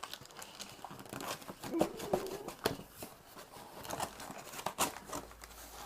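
Packaging being rummaged through and pulled at: crinkling, rustling and tearing with many small clicks and knocks, and a brief low squeak about two seconds in.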